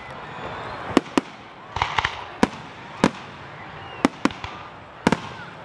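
Aerial fireworks shells bursting, a series of about ten sharp bangs. Some come singly and some in quick pairs, with a denser cluster of pops about two seconds in.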